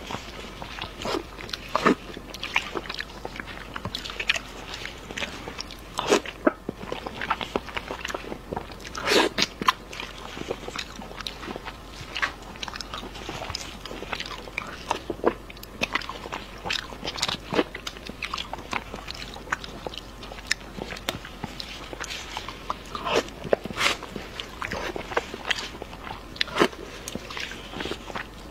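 Close-miked eating sounds: wet biting, chewing and lip smacking on saucy braised chicken wings, with irregular sharp clicks and an occasional crunch.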